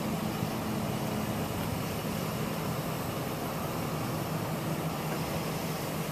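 Steady low mechanical hum with a broad hiss over it, even throughout, with no distinct events.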